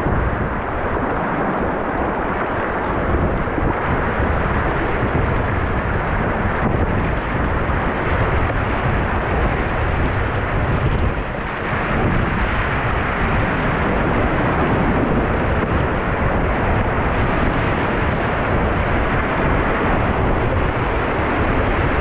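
Whitewater rapids rushing loudly and steadily around an inflatable kayak, with a heavy low rumble of wind buffeting the microphone.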